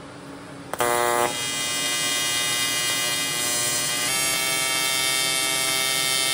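AC TIG welding arc from a PrimeWeld inverter welder on aluminum plate: the arc strikes a little under a second in with a brief louder start, then runs as a steady buzz.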